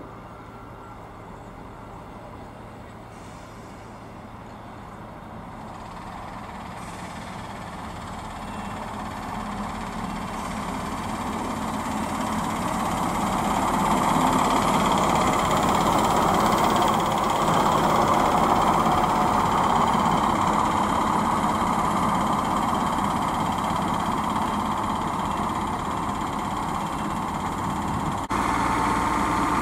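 Yellow diesel maintenance railcar approaching and passing slowly close by, its engine and running noise swelling over about eight seconds and loudest as it goes past. The sound steps up abruptly near the end.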